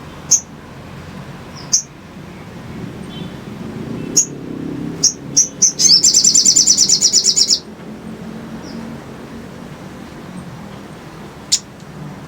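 Little spiderhunter calling: sharp, high single chips spaced a second or more apart, and about six seconds in a rapid trill of about ten notes a second lasting a second and a half.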